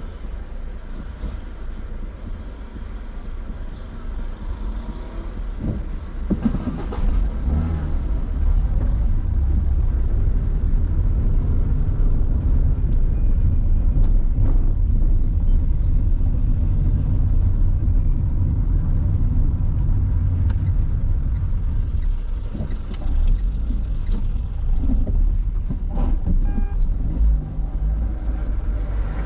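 Low rumble of a car's engine and tyres heard from inside the cabin, rising from about six seconds in as the car pulls away from a stop and drives along a city street. A few faint clicks and knocks are heard along the way.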